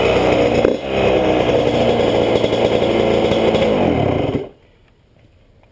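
1994 Yamaha YZ80's two-stroke single-cylinder engine running with a quick blip of the throttle about a second in. Near the end the revs fall and the engine shuts off.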